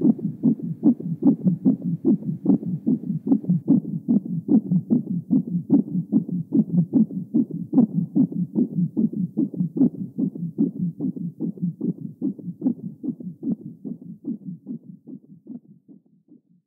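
A recorded human heartbeat beating steadily with an even pulse, fading out over the last few seconds.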